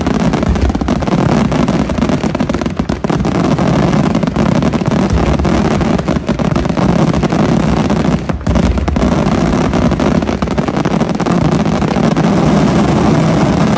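Fireworks finale: a dense barrage of aerial shell bursts and crackle so thick that the bangs run together into one loud, continuous rumble with no gaps.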